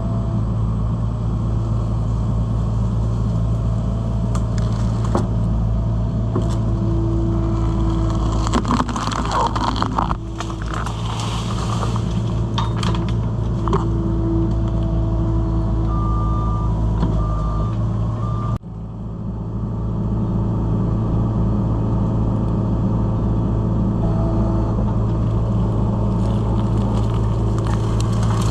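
Skid steer's engine running steadily, with the whine of its hydraulics working the tree shear and a cluster of sharp cracks and snaps about a third of the way in. The sound drops suddenly about two-thirds through, then the engine builds back to a steady run.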